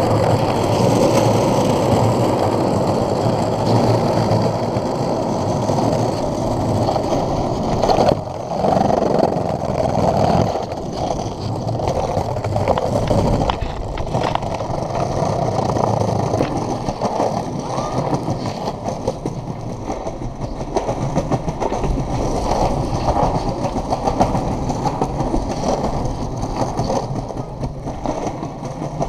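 Globe Big Blazer cruiser skateboard's wheels rolling over paving stones, a steady rough rolling noise with brief dips about eight and ten seconds in.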